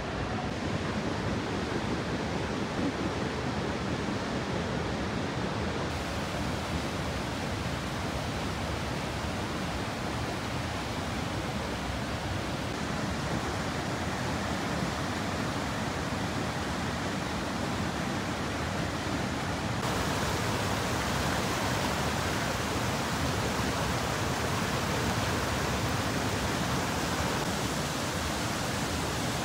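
Floodwater rushing and churning in a swollen river pouring over a dam: a steady, even rush of water noise, a little louder from about twenty seconds in.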